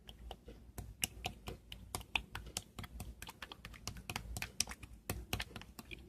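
Typing on a keyboard: quick, irregular key clicks, several a second.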